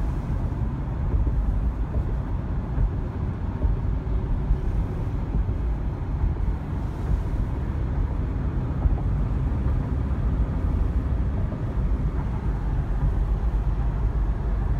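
Steady low road rumble of a car driving, heard from inside the cabin: tyre and engine noise.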